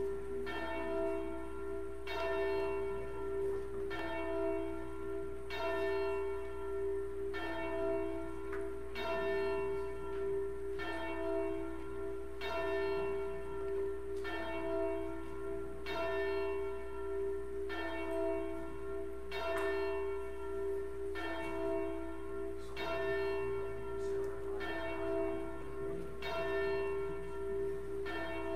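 A single church bell tolling steadily, about one stroke a second, the same note each time and each stroke ringing on into the next.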